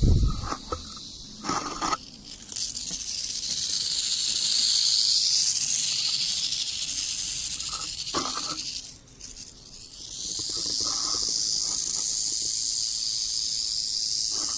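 Rattlesnake rattling: a continuous high, dry buzz that breaks off about nine seconds in and starts again a second later. A knock sounds at the very start, with a few lighter knocks in the first two seconds.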